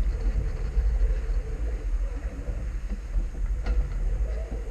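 Wind buffeting the microphone in a low, gusting rumble, over the rush of water along the hull of a small sailboat moving fast in a stiff breeze. A single short knock sounds about three and a half seconds in.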